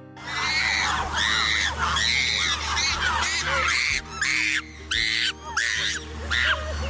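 An animal's high-pitched excited squeals, coming thick and fast at first and then as separate short cries, each rising and falling, about one to two a second.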